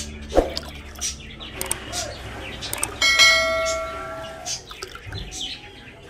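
A bell chime sound effect from a subscribe-button animation rings out about halfway through as a single struck bell tone that fades over about a second and a half. A sharp knock comes near the start, and short high bird chirps are heard throughout.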